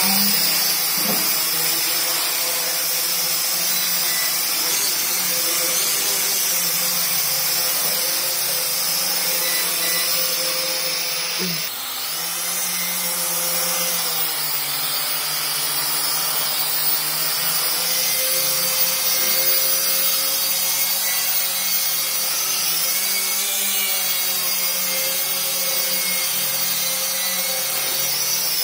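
Toy quadcopter's four small electric motors and propellers whining steadily, the pitch wavering up and down as the throttle changes, with a short break about twelve seconds in.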